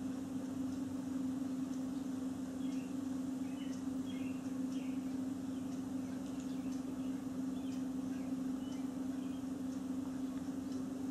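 Ambient room sound: a steady low hum, with faint, scattered bird chirps throughout.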